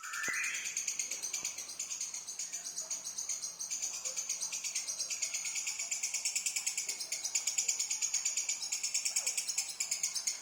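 Songbird singing a continuous, high-pitched trill: a fast, even stream of pulsed notes without a break, opening with a short rising note. A 'nyosor' song of the kind recorded as masteran for training white-rumped shamas.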